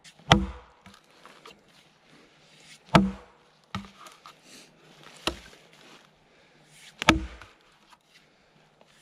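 Axe chopping into a felled log: four heavy blows about two seconds apart, with a lighter knock shortly after the second.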